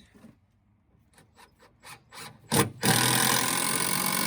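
Light taps and clicks on wood, then a power tool starts up loudly against the wood about three seconds in and keeps running steadily.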